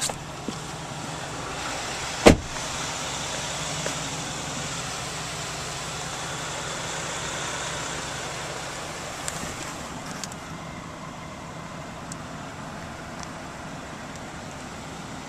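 Steady hum and hiss inside a pickup truck's cabin, a little louder for the first several seconds, with one sharp knock about two seconds in and a few faint clicks.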